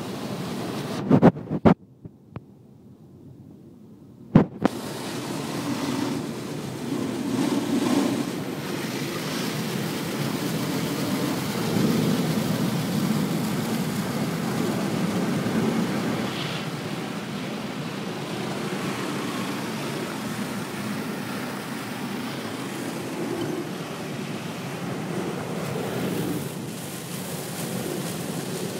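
Automatic car wash heard from inside the car: water spray and rotating brushes scrubbing over the body and windows make a steady rushing, slapping wash. A few sharp knocks and a short quieter lull come in the first few seconds.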